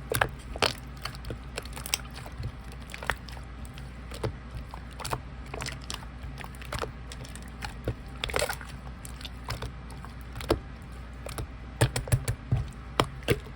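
Clear slime being squeezed and stretched by hand, giving irregular sticky clicks and small air-bubble pops, with a quick run of them near the end. A low steady hum lies underneath.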